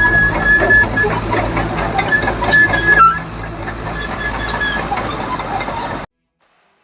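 Caterpillar D4H crawler bulldozer working: its diesel engine runs steadily under the clanking of the tracks, with a high squeal through the first three seconds. The sound cuts off abruptly about six seconds in.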